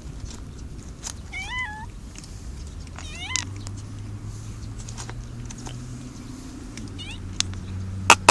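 Cats meowing for food: short, high, wavering meows about a second in, about three seconds in, and once more near the end, with a few sharp clicks between them.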